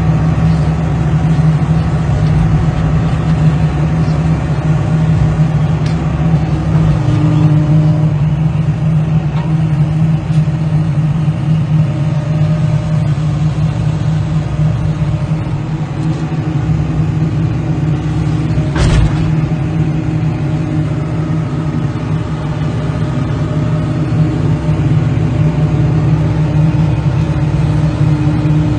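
A vehicle engine running steadily with a constant low drone, and a single sharp knock about nineteen seconds in.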